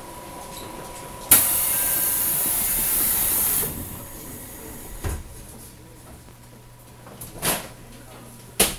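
Loud hiss of compressed air being released on a JR Central 373 series electric multiple unit, heard from inside the car's vestibule: it starts suddenly, lasts about two seconds and cuts off, followed by a few short knocks and clunks.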